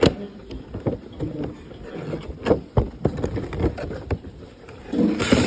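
Toy packaging being handled and opened: scattered clicks and knocks of plastic and cardboard, with a louder rustling stretch near the end.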